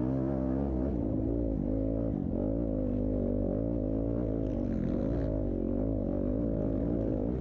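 Several motocross dirt bike engines running on the track, their pitch rising and falling as the riders rev up and back off.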